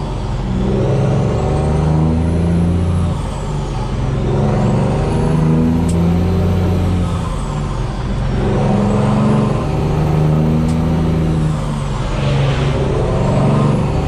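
Peterbilt 389 semi truck's diesel engine pulling up through the gears, heard from inside the cab. It pulls four times with a turbo whistle rising in pitch, and the note drops off briefly at each of three gear shifts.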